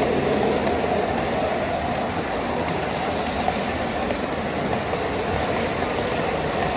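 O gauge model freight cars rolling past on three-rail track: a steady rumble of metal wheels on the rails, with light, rapid clicking throughout.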